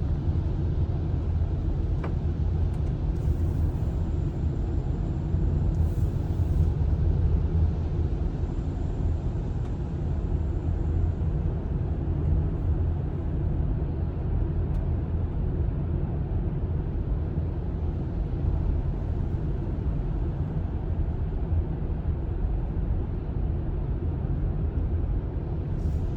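A car driving through a road tunnel, heard from inside the cabin: a steady low rumble of engine and tyre noise.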